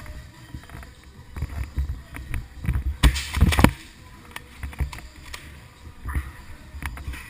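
Irregular thumps, knocks and rubbing from a body-worn action camera as its wearer moves about, with a louder burst of rustling noise about three seconds in.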